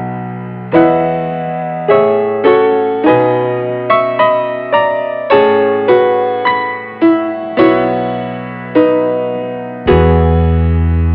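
Background piano music: a run of struck chords that each fade away, with a steady low bass joining near the end.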